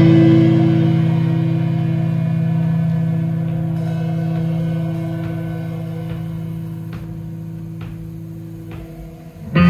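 Instrumental post-rock band playing live: electric guitars hold a sustained chord that rings on and slowly fades. Near the end the full band comes back in loudly.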